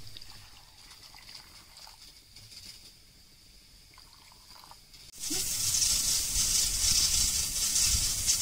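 Water poured into a steel blender jar of chopped beetroot and fruit: a loud, steady hissing splash that starts suddenly about five seconds in, after a quieter stretch with a few faint ticks.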